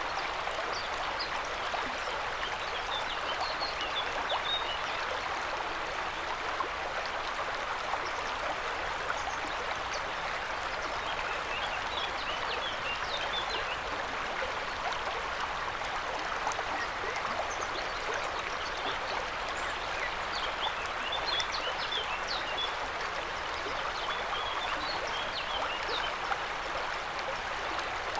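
River water rushing steadily, with short high-pitched flecks of sound here and there.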